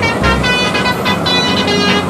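Multi-tone 'telolet' bus horn playing a quick tune of short pitched notes, over music.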